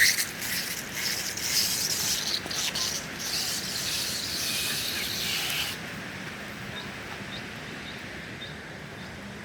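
Hissing, crackling noise of a bicycle moving fast down a rough dirt road, tyres on gravel and air rushing past, which cuts off suddenly about six seconds in and leaves a quieter steady hiss.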